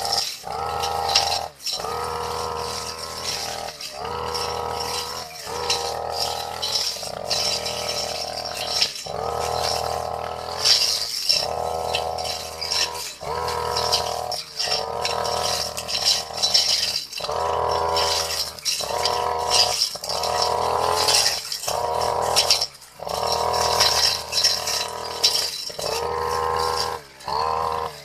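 Brush cutter fitted with a metal blade, its engine running at high revs in repeated surges about a second long, with short breaks between, as it cuts long grass.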